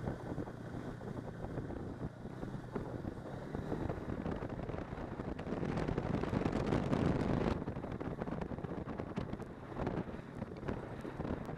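Snowmobile running along a snow trail, its engine drone mixed with wind buffeting the microphone. It gets louder for about two seconds around the middle.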